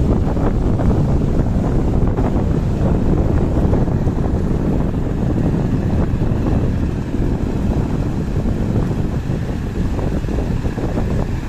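Strong wind buffeting the microphone: a loud, steady, rumbling roar with no break.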